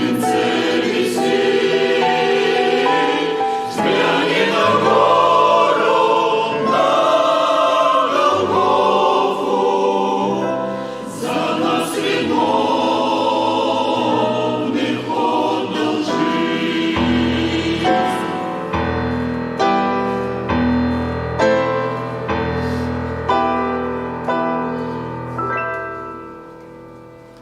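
A choir singing a Christian hymn with instrumental accompaniment. About two-thirds of the way through the singing gives way to a run of held chords over deep bass notes that fade out at the end.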